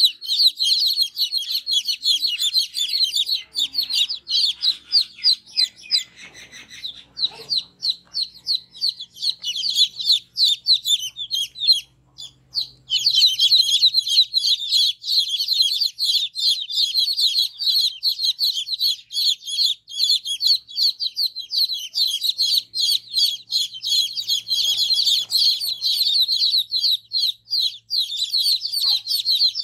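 Many young chicks peeping: a dense chorus of short, high-pitched peeps, with a brief pause about twelve seconds in.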